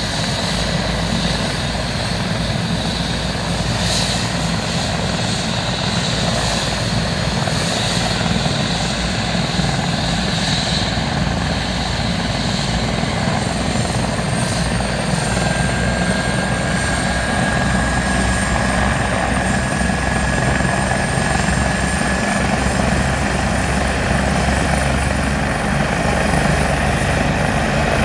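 Helicopter running on the helipad with its rotor turning, warming up before lift-off: a steady, loud mix of rotor and engine noise. A thin high whine comes in about halfway through and holds.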